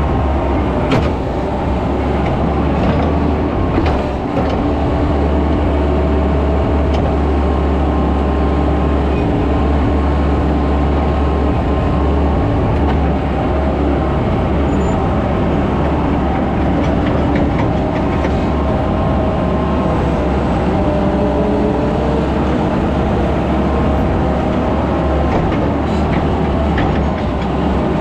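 Skid steer engine running steadily at working speed, its pitch wavering slightly, with a few light knocks.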